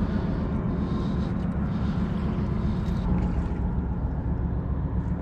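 Steady low engine drone from a boat on the river. Now and then there are faint footsteps on wet sand.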